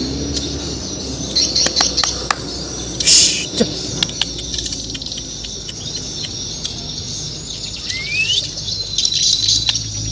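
Bornean white-rumped shama (murai batu) calling in short, scattered high chirps and clicks, with one rising whistle about eight seconds in. A steady low rumble runs underneath.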